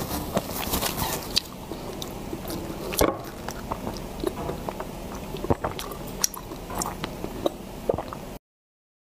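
Close-miked wet mouth sounds of sipping and swallowing a milky drink from a large plastic cup: sharp wet clicks and gulps, the loudest about three seconds in. The sound cuts off suddenly near the end.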